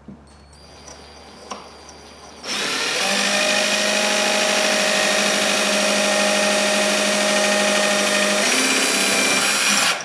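Cordless drill boring mounting holes through acrylic sheet. A faint high whine comes first as the trigger is eased in. About two and a half seconds in the drill runs loud and steady, then it stops near the end.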